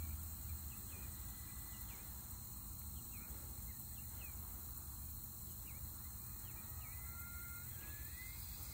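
Faint rural field ambience: a steady high insect drone with scattered short chirps, and a thin tone that glides upward near the end.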